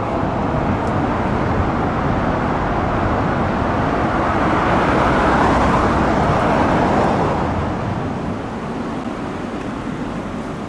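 Road traffic noise, with tyre and engine noise from vehicles on the road. The noise swells about halfway through as a vehicle passes, then eases off.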